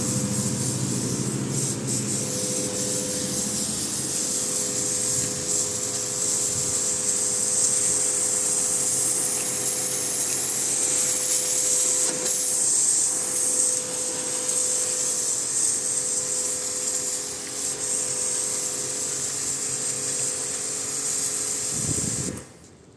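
Pressure washer spraying: the steady hiss of the water jet over the hum of its pump motor, cutting off suddenly near the end.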